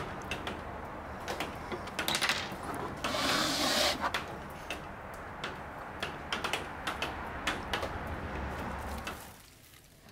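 Clicks and knocks of plastic trimming clamps being loosened and a leather-hard clay pot being handled and lifted off a pottery wheel head, with a short rubbing hiss about three seconds in over a low steady hum. The sounds drop away shortly before the end.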